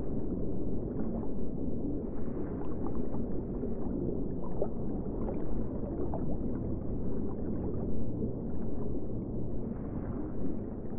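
Underwater ambience: a steady, muffled low rumble with faint scattered bubbling and small clicks.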